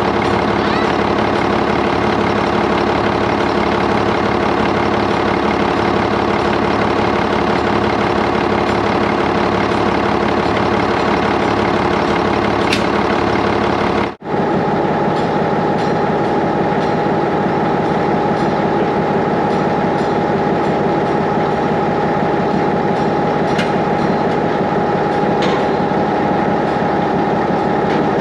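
Articulated dump truck's diesel engine running steadily at idle, with the exhaust rain-cap flapper rattling on the stack. About halfway through the sound changes abruptly and a steady higher whine comes in.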